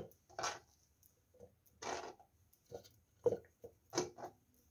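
Handfuls of torn cabbage leaves dropped into a clear plastic food processor bowl, several soft rustles and light knocks.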